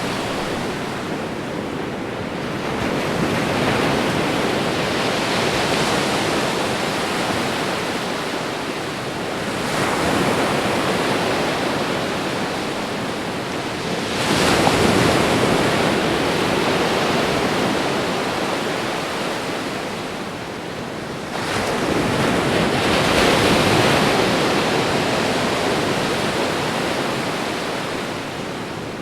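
Ocean waves washing onto the shore. A new wave breaks with a sudden rush of surf every five to seven seconds, then fades.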